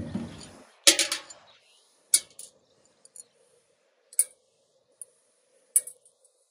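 Sharp clicks and taps of small angle-grinder parts, hard plastic and metal housing pieces, knocking together as they are handled and pulled apart by hand. There are about four separate clicks a second or two apart, the loudest about a second in.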